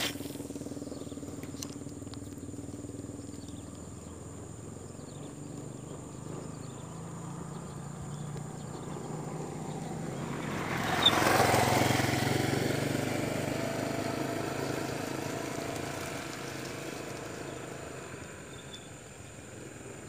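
A motorcycle passing by, its engine growing louder to a peak about halfway through and then fading away.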